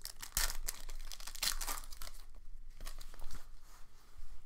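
Foil wrapper of a Panini Select football card pack being torn open and crinkled in the hands: a run of irregular crinkles and rips, loudest in the first second and a half.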